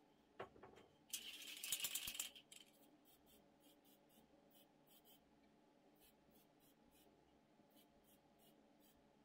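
An aerosol spray-paint can giving one short burst: a hiss about a second long that starts about a second in, just after a few light knocks. A string of faint short ticks follows.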